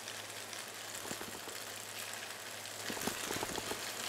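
Diced tofu, mushrooms and dried shrimp sizzling in hot oil in a wok, a steady fine crackle as bean paste and sweet bean sauce fry. A few soft knocks come about three seconds in.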